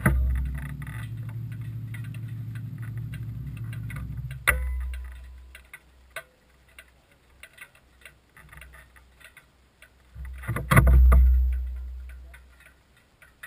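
A vehicle's engine idling with a steady low hum, cut off suddenly with a click about four seconds in. Then scattered faint ticks, and a loud low rumble near the end that fades over about two seconds.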